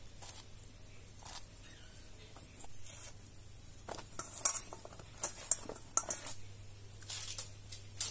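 Scattered light clicks, taps and short scrapes of food being prepared by hand, utensils and vegetable handled, becoming busier about halfway through, over a faint steady low hum.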